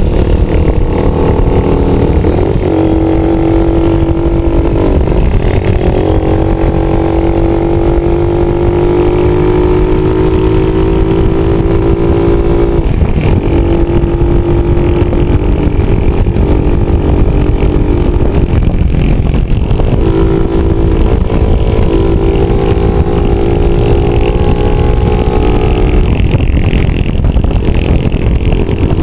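A vehicle engine pulling on the road. Its pitch rises slowly and then drops suddenly as it shifts up, about five times, over steady loud road and wind noise.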